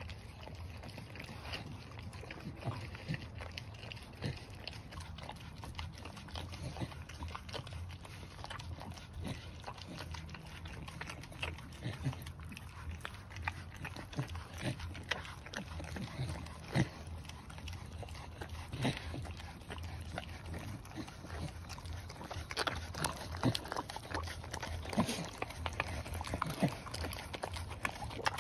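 Staffordshire Bull Terrier licking wet raw food from a rubber lick mat: irregular wet smacks and tongue clicks, coming thicker and louder in the last few seconds, over a steady low hum.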